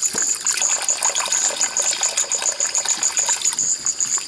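Night insect chorus: a rapid high pulsing trill, about ten pulses a second, over a steady high buzz. Small irregular splashes and ticks come from hands working over wet plastic.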